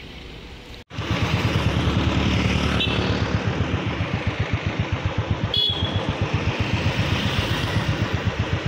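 Road traffic of cars and motor scooters driving through a railway underpass, with a fast, even low throb and a couple of brief high beeps; it starts abruptly about a second in.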